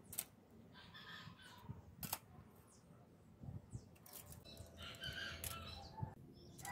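A rooster crowing twice in the background, with hens, over a quiet background. A few sharp clicks come from a steel tape measure being handled.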